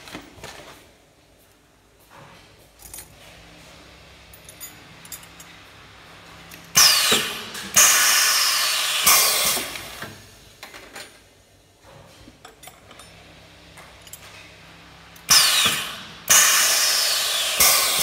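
Seat belt buckle rivet fixture working through two cycles. Each cycle is a few sudden, loud noisy bursts that fade away, the first group about seven seconds in and the second near the end, with a faint low hum between them.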